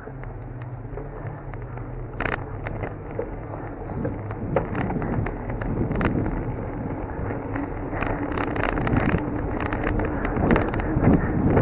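Bicycle ridden along an asphalt street: tyre and road rumble with wind on the microphone, broken by many quick rattling clicks from the bike and its camera mount. It grows steadily louder as the ride goes on.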